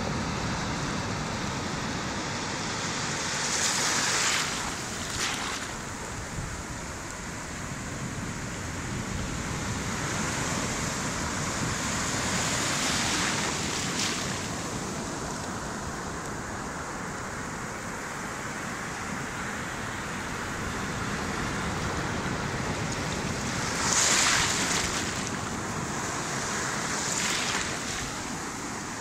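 Sea waves breaking and foamy surf washing up over wet sand, a continuous rush that swells and ebbs. The loudest surges come about four seconds in and again about twenty-four seconds in.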